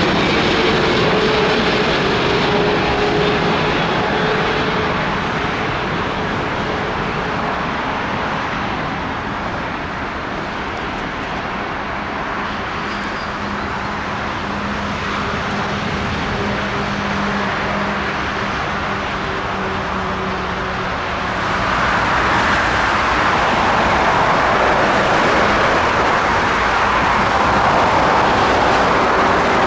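Jet engines of a Boeing 777-200F freighter landing: a steady rush with a slowly falling whine, over road traffic. About twenty seconds in the rush suddenly grows louder as an Airbus A350-900 comes in to land.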